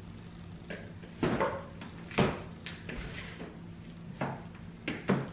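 About half a dozen light knocks and clatters at irregular intervals, the kind made by someone moving about and handling things in a room, over a faint steady hum.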